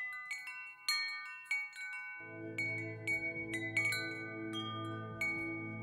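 Relaxation music for sleep: wind chimes ringing in irregular, overlapping strikes, joined about two seconds in by a sustained low drone.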